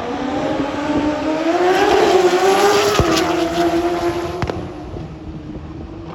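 Drag racing motorcycle engine running hard at high revs, with a steady pitch. It grows to its loudest about two seconds in, then fades away.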